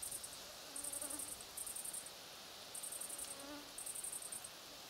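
A stridulating meadow insect of the grasshopper and cricket kind, chirping in high-pitched buzzy bursts of about half a second, roughly one a second.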